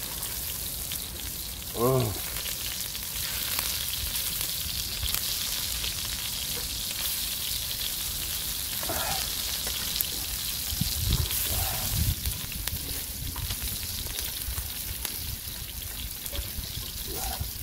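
Sliced pork belly and neck meat sizzling steadily on a cast-iron cauldron-lid (sotttukkeong) griddle over a wood fire. A short vocal sound cuts in about two seconds in.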